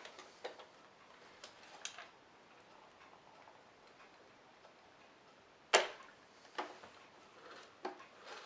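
Scattered clicks and knocks of parts being handled while a new drive belt is fitted to an old Hoover Senior upright vacuum cleaner: a few light clicks, then one sharp knock a little before six seconds in and two smaller ones after it.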